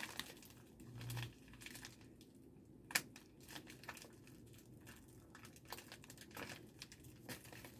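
Faint crinkling and crackling of a plastic mailer envelope being handled and cut open, with one sharp click about three seconds in.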